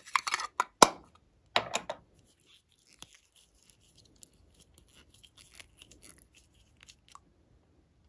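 Small plastic case handled and opened, with clicks and rattling and one sharp click a little under a second in. After that come faint ticks and scratches as the cap of a small plastic bottle is twisted open.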